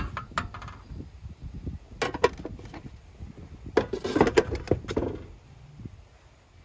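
Kitchen handling sounds: sharp clicks and clatter of a kettle and a hand-pump milk frother being handled on a counter, with a few knocks about two seconds in and a quicker run of knocks and clinks around four seconds in.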